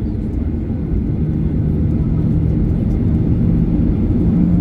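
Boeing 737-800 airliner's CFM56 jet engines running, a dense low rumble. A steady hum comes in about a second in and climbs slightly in pitch and loudness toward the end.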